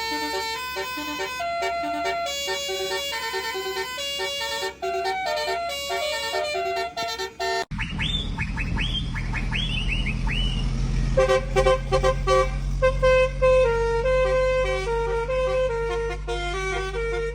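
Truck's multi-tone musical horn playing a quick melody of changing notes. After a cut about eight seconds in, the truck's engine runs low beneath a rapid series of falling whistle chirps from the horn, then the horn melody starts again.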